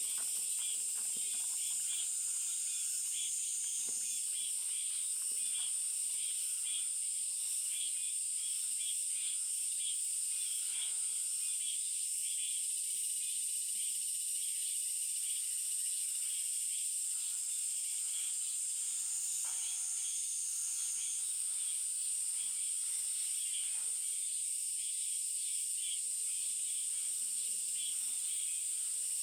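Countryside ambience: a steady high-pitched insect drone, with dense, fast chirping of insects and birds beneath it and a short high trill twice.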